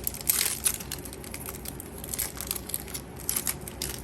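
Foil booster-pack wrapper crinkling and crackling as it is peeled open and handled, in short irregular bursts.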